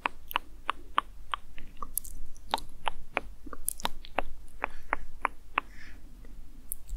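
Close-miked ASMR mouth clicks: a run of short, soft wet clicks, about three a second, with a couple of brief pauses.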